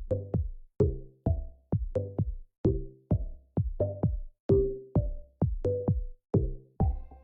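Electronic background music with a steady drum-machine beat, about two kicks a second.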